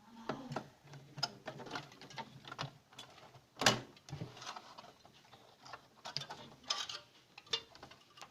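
Irregular clicks, taps and knocks of a non-frost fridge's inner parts being handled and fitted back into place, with one louder knock a little over three and a half seconds in.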